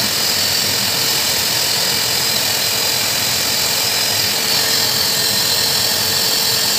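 Pet grooming dryer blowing air through its hose and nozzle into a dog's coat: a steady motor whine with a loud rush of air.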